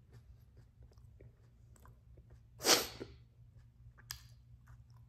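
A man sneezing once, loudly, about halfway through, with a short catch of breath right after. The sneeze comes from the heat of a superhot chili pepper getting into his nose and sinuses.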